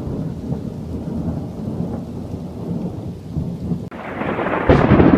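Thunder rumbling low and long after a lightning flash. About four seconds in it cuts abruptly to louder, hissier rain and storm noise, which swells near the end.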